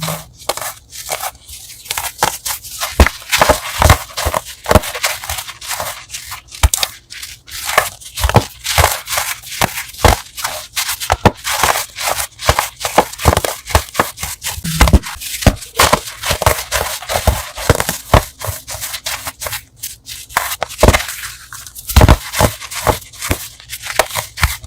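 Crunchy chalk blocks being crushed: a continuous run of sharp, crisp crunches and crackles, many a second, with short pauses.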